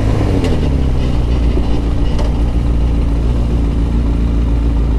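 Suzuki sport motorcycle's engine running at a steady cruise, its note easing down slightly at the start and then holding even, under a constant rush of wind and road noise.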